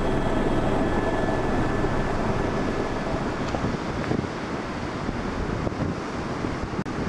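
Helicopter turbine and rotor hum, a steady droning tone, fading out over the first two to three seconds and giving way to a rush of wind across the microphone.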